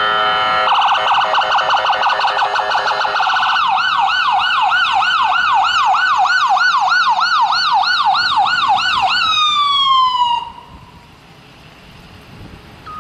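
Ambulance's electronic siren going at close range: a fast pulsing warble for the first few seconds, then a yelp sweeping up and down about three times a second, then winding down in a falling glide and cutting off about ten seconds in.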